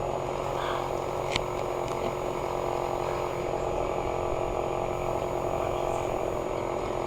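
Chainsaw engine running at a steady speed, with a brief sharp click about a second and a half in.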